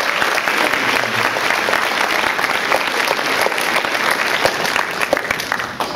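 Audience of high-school students applauding, many hands clapping steadily and starting to die away at the very end.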